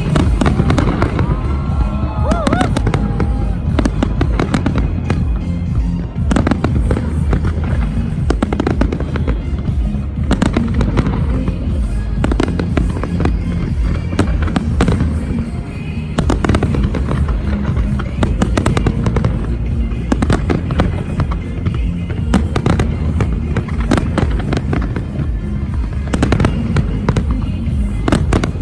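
A large fireworks display: a continuous, dense barrage of bangs and crackling reports over a deep rumble, with music playing underneath.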